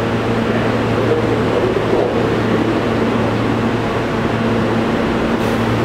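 R160 subway car standing at the platform, its air-conditioning and auxiliary equipment giving a steady, even hum.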